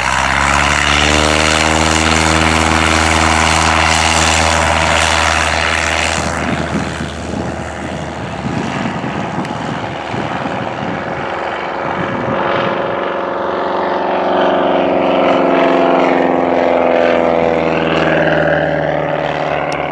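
Light propeller airplane's engine coming up to power, rising in pitch as the sound swells, then running loud and steady with propeller noise; the engine note shifts somewhat from about six seconds in.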